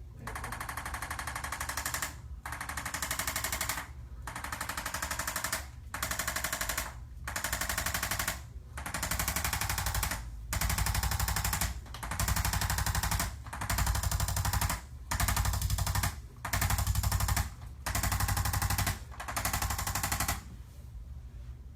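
Handheld electric chiropractic percussion instrument firing rapid pulses against the back in about a dozen bursts of a second or so each, with short pauses between them. It is being used to loosen the sore low-back muscles before the adjustment.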